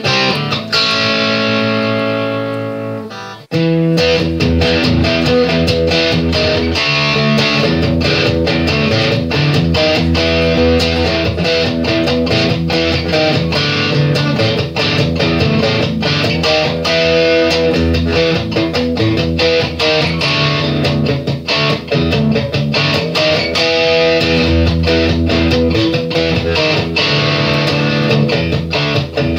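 Background music led by electric guitar. Sustained chords fade into a brief drop about three and a half seconds in, and a busier passage with a steady beat follows.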